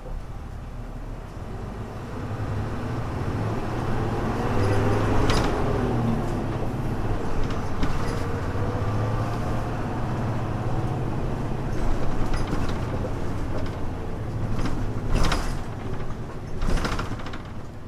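Hino Blue Ribbon U-HU2MLAA city bus (1991–92) running, its diesel engine picking up with a rising whine over the first few seconds, then running on steadily. Three short loud rushes of noise, one about a third of the way in and two near the end.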